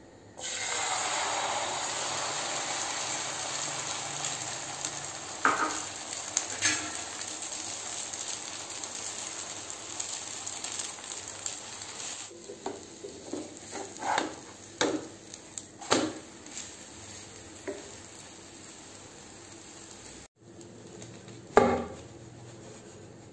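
Omelette batter of egg and chopped drumstick leaves hitting a hot nonstick frying pan and sizzling loudly, the sizzle slowly dying down. A metal spoon clicks and scrapes against the pan several times, and near the end there is one loud knock.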